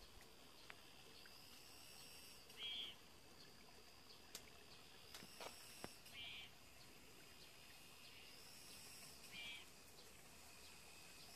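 Faint outdoor insect sounds: steady high trilling, with a short buzzy call repeating about every three seconds.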